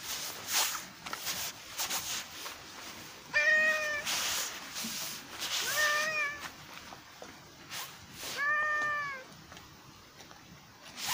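A cat meowing three times, about two and a half seconds apart, each meow a short call that rises and falls slightly in pitch.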